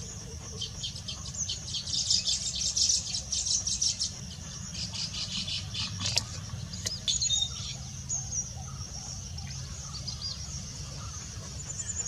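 Baya weaver chattering: a run of rapid high chirps, densest a couple of seconds in, then sparser chirps and a few short thin whistles, over a steady low rumble.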